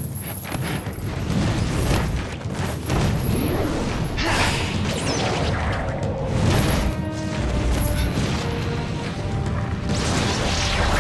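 Movie fight-scene soundtrack: background music mixed with sound effects of swishing movement and heavy hits, with two louder rushing swishes, one a little over four seconds in and one near the end.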